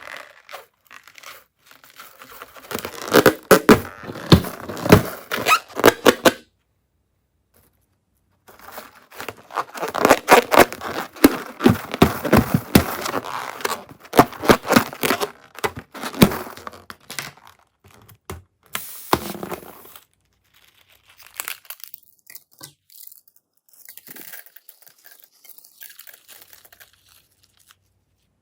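Slime being squeezed and stretched by hand, with wet crackling, clicking and popping. It runs in two long stretches with a short pause between them, then turns quieter and sparser after about twenty seconds.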